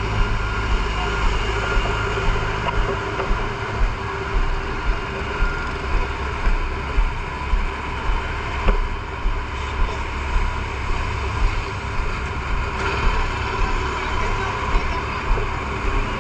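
Fire truck engine running steadily, with a regular knock a little more than once a second.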